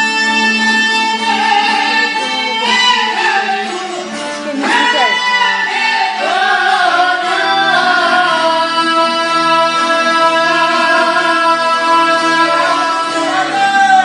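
Albanian folk song sung live, a voice holding long, wavering notes over a string-instrument accompaniment.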